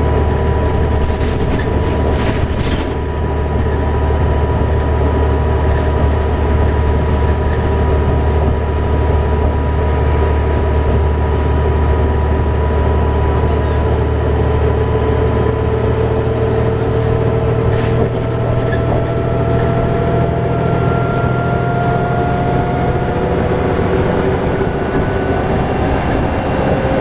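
Cabin of a New Flyer D60LFR articulated diesel bus cruising at freeway speed: the steady low drone of its Cummins ISL9 engine and Allison transmission under road and tyre noise. A whine slowly rises in pitch over the second half, and a couple of brief rattles come through, one early and one around the middle.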